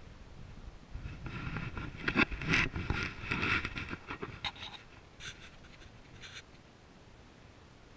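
Close rustling and scraping with clicks, loudest in the first half, as the camera is handled and turned, then two short scratches.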